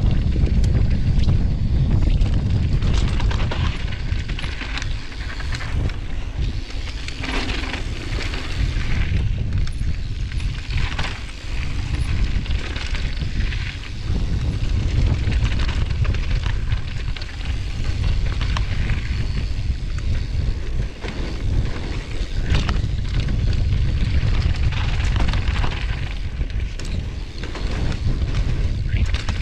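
Wind buffeting a helmet camera's microphone as a downhill mountain bike rolls fast over a dirt trail, with tyre noise and the knocks and rattle of the bike over bumps.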